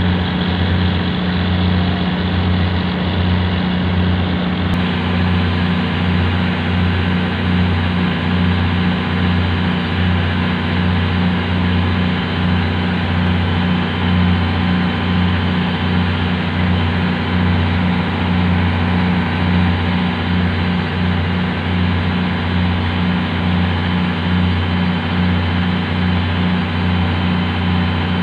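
A boat's engine running steadily, with an even, regular low throb.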